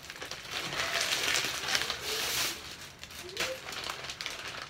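Plastic sack of hydrated lime crinkling and rustling as it is handled and tipped over a bucket to pour the powder out, loudest in the first two and a half seconds, then quieter.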